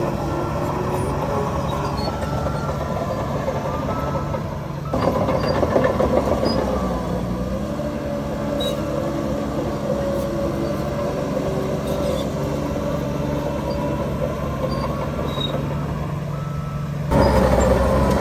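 Heavy diesel engines of earthmoving machinery running steadily. The sound changes suddenly about five seconds in and again near the end.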